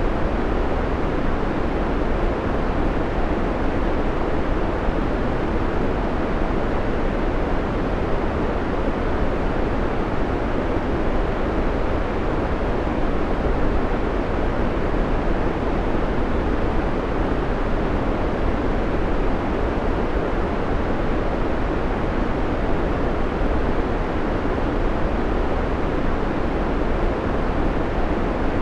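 Steady white noise: an even, unbroken rushing hiss that carries most of its weight low and thins out toward the top.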